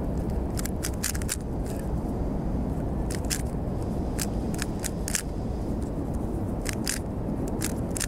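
Plastic 3x3 puzzle cube being turned by hand, giving quick runs of sharp clicks as it goes through a solving sequence, over a steady low rumble.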